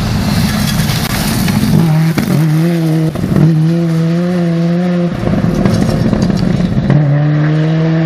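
Subaru Impreza N15 rally car's turbocharged flat-four driven hard on a gravel forest stage, the engine note held high and steady, breaking off and coming back about four times at gear changes or throttle lifts. A hiss of tyres on loose gravel runs under it in the first few seconds.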